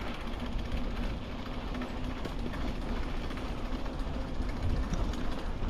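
Steady rolling noise of a bicycle in motion, with an uneven low rumble and a faint steady hum.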